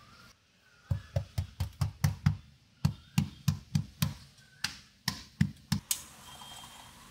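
Hands patting and knocking on a van's sheet-metal floor as a self-adhesive damping sheet is pressed down onto it: a quick run of dull knocks, about four a second, lasting some five seconds.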